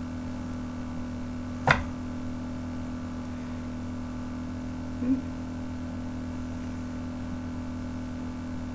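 A hand-held wire soap cutter gives one sharp click about two seconds in, as it finishes slicing a bar off a loaf of soap and meets the board or table, over a steady low hum. A faint knock follows about five seconds in.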